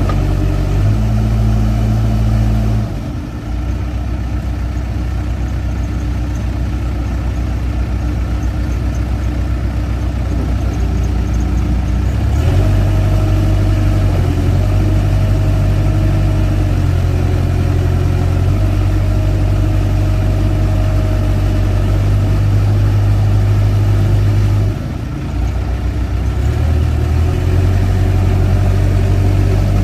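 The 80 HP Case diesel engine of a 2006 Case 580M Series 2 loader backhoe running. Its note and level step up and down a few times, about 3, 12 and 25 seconds in.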